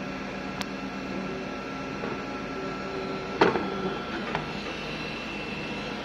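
Diode laser hair removal machine running with a steady hum. One sharp knock comes about three and a half seconds in, with a few lighter clicks around it, as the plastic handpiece is handled at its holder.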